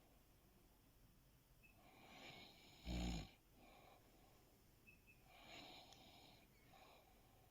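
A sleeping person snoring. There is one loud, low snore about three seconds in, and a softer breath a couple of seconds later.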